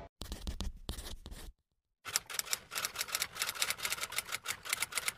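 A fast, even run of sharp clicks, about six a second, like typewriter keys, starting about two seconds in after a short silence; a few scattered clicks come before the silence.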